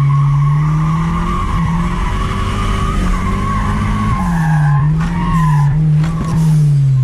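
Turbocharged Chevrolet Chevette's four-cylinder engine running at high revs, the pitch rising and dipping several times, while the tyres squeal continuously through a drift.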